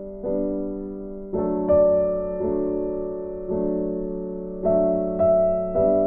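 Background music: soft piano chords played slowly, each struck and left to ring and fade.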